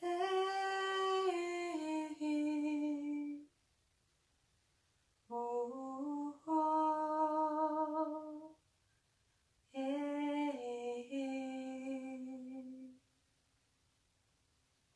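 A woman's voice toning without words: three slow sung phrases of about three seconds each, each moving in steps between a few held notes, with silence between them.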